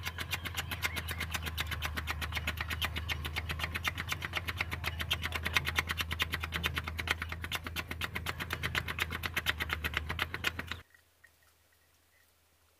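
Isuzu 6BG1 six-cylinder diesel cranking on the starter without firing: a fast, even beat of compression strokes over a steady hum, cutting off suddenly near the end. It is being turned over while air is bled at the injection pump on an engine with a no-start fault.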